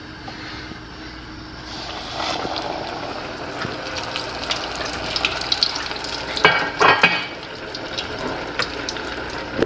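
Hot oil sizzling and crackling as breaded halibut deep-fries, growing louder about two seconds in, with a few sharper pops near the middle.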